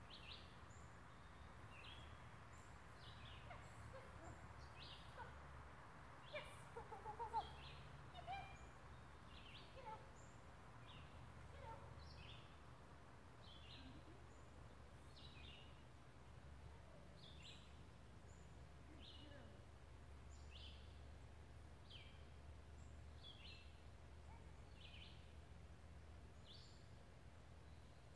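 Quiet outdoor ambience: a small bird repeats a short, high chirp about once a second over a steady low rumble. A few brief louder sounds come around seven seconds in.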